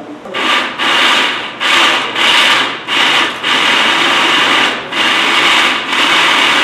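Countertop electric blender chopping chunks of tomato and cucumber, pulsed in about seven short bursts with brief gaps, then running continuously from about six seconds in.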